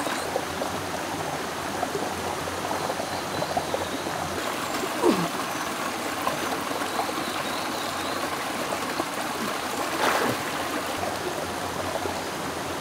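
Steady rush of a shallow, rocky forest stream flowing into and through a pool.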